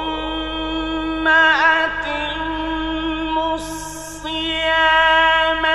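A man's voice chanting Quran recitation in the drawn-out, melodic mujawwad style: long held notes with a quick dip in pitch about a second and a half in and a brief hiss of a consonant near the middle.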